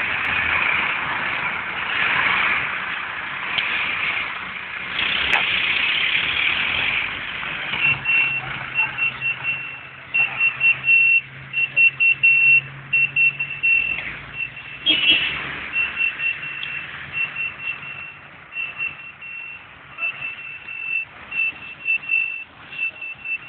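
Road and engine noise from the Mercedes-Benz fire engine. About eight seconds in, a vehicle reversing alarm starts beeping in short, high, single-pitch pips, roughly two a second.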